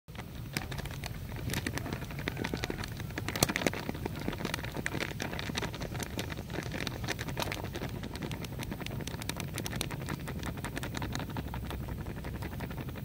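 Flour pouring in a steady stream into a ceramic bowl: a continuous fine pattering crackle over a steady low rumble.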